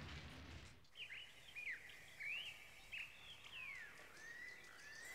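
Small birds chirping faintly: a string of short, quick, sliding high calls starting about a second in, after the bustle of crowd footsteps cuts off.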